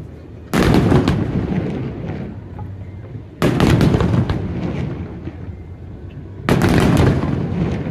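Aerial fireworks shells bursting overhead: three loud booms about three seconds apart, each followed by a rumble that dies away over a second or two.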